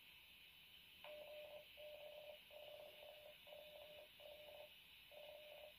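Faint beeps from a Baofeng UV-5R handheld's speaker as a ham radio repeater answers after being accessed: six short beeps at one steady middle pitch, starting about a second in, over a low hiss. They show that the repeater has opened, so the CTCSS tone and the offset frequencies are set right.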